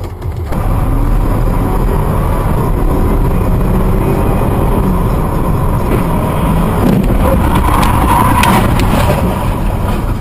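Steady road and engine rumble of a car driving at city speed, heard from inside its cabin through a dashcam microphone, with a little extra rattling noise about seven to nine seconds in.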